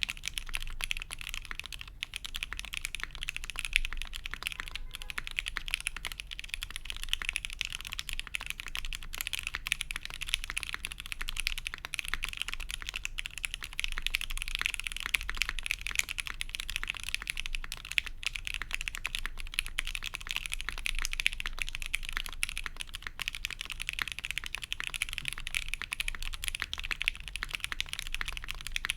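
Continuous fast typing on a mechanical keyboard with lubed OPBlack switches on an FR4 plate, gummy O-ring mounted, with GMK keycaps. It makes a dense, steady stream of keystrokes with no breaks.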